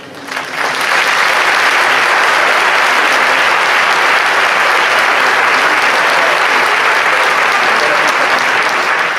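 Large audience applauding, building within the first second to a dense, steady clapping that holds throughout.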